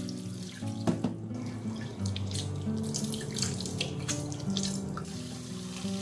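Cold tap water running into a stainless steel kitchen sink and splashing over drained spinach in a mesh strainer, to cool it. There is a sharp knock about a second in.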